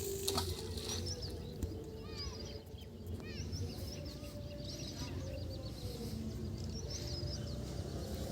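Small birds chirping: many short, arching high calls, scattered over a low, steady background rumble.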